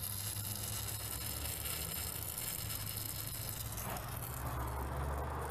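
Lincoln Continental V8 idling steadily, with a hissing noise under the hood. The owner places it around the master cylinder or power brake booster.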